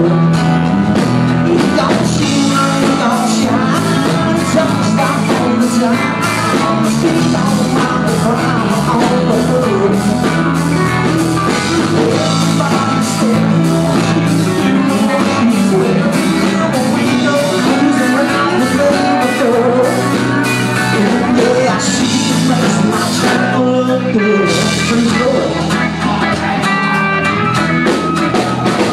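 Live country-rock band playing loud: electric guitar and drum kit with a steady beat, with a singer's vocals.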